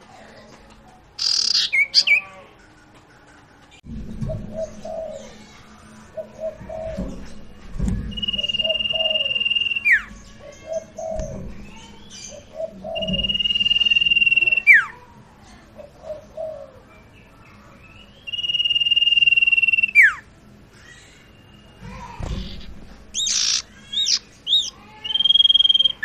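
A caged sirtu songbird, in moult, singing loudly. Four long, steady, high whistles each end in a quick downward slide, with sharp, rapid chirp flurries near the start and near the end.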